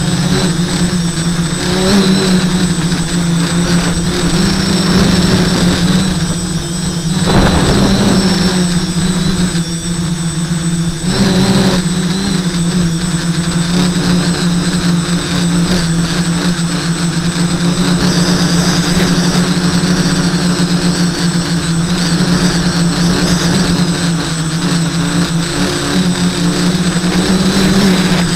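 SK450 quadcopter's four Sunnysky 980 kV brushless motors and propellers buzzing steadily up close, heard from the craft itself in flight. The buzz drops briefly about seven seconds in and again around ten seconds in, with a short rush of noise between.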